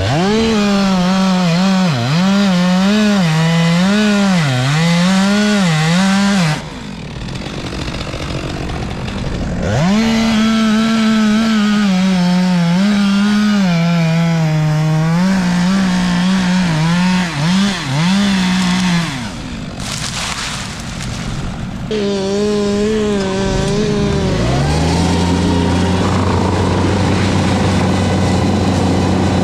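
Two-stroke chainsaw running at high revs in three long bursts, its pitch dipping and recovering again and again as the chain bogs down in the cut. Near the end a larger engine comes up and runs steadily at a lower pitch.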